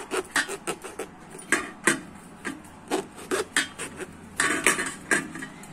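Kitchen knife scoring slits into the skin of a whole raw eggplant: an irregular run of short scraping cuts, a couple to a few a second.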